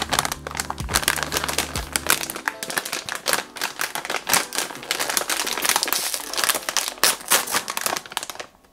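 Plastic snack-chip bag being crinkled in the hands and pulled open: dense, irregular crackling that stops abruptly just before the end.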